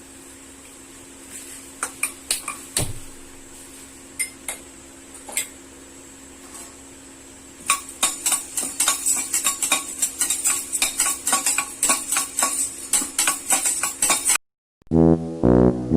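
Dry spices (peppercorns, long pepper and dry ginger) being dry-roasted and stirred in a pan: a few separate clinks at first, then several seconds of rapid, continuous rattling and scraping. It cuts off suddenly near the end and brassy music comes in.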